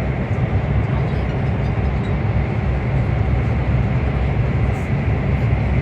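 Steady low rumble inside the passenger car of a CRH1A-A high-speed train running at speed.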